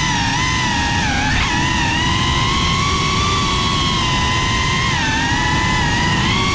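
FPV quadcopter's motors and propellers whining at a steady pitch that wavers up and down with the throttle, with a quick blip about a second and a half in, over a low rush of noise.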